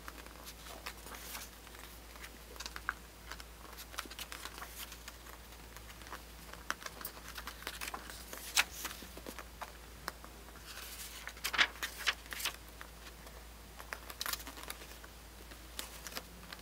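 Paper pages of a printed zine being turned and handled: irregular soft rustles and flicks of paper, with a few louder page swishes past the middle, over a faint low hum.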